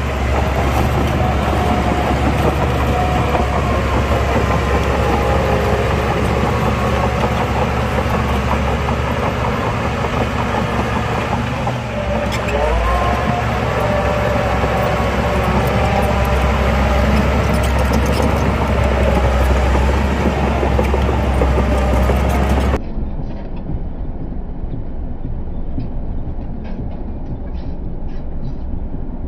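Heavy earthmoving machinery's diesel engine running steadily under load, a loud deep rumble with a wavering whine above it. About 23 seconds in the sound abruptly turns duller and a little quieter.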